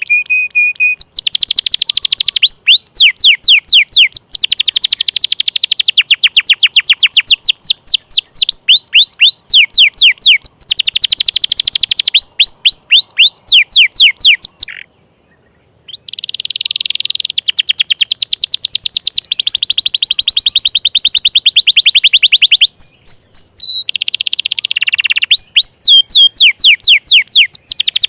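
Domestic canary singing a long, loud song of fast trills, each a rapid run of repeated notes sweeping down in pitch, with a pause of about a second roughly halfway through.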